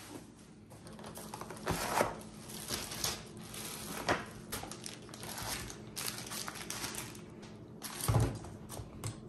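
Takeout food being unpacked and laid out on a table: bags and wrapping paper rustle, and plastic sauce cups and a styrofoam clamshell are set down with irregular light clicks and knocks. The loudest knock comes about a second before the end.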